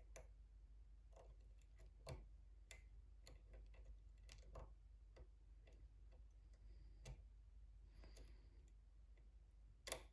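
Faint, irregular clicking of a thin lock pick and tension tool working the pins inside a pin-tumbler challenge lock, with a louder pair of clicks near the end.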